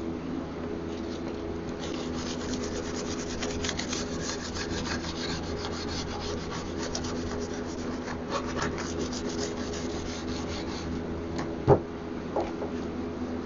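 Scouring pad of a sponge scrubbing the wooden edges of a drawer, a fast rasping back-and-forth scrub from about two seconds in until near the end, degreasing and deglossing the old finish to prep it for paint. A single sharp knock comes just before the end, over a steady low hum.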